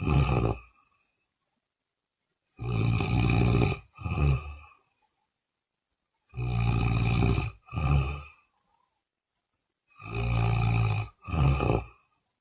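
Loud snoring in a steady repeating pattern. About every four seconds comes a long snore of just over a second, followed at once by a shorter one, with silence between the pairs.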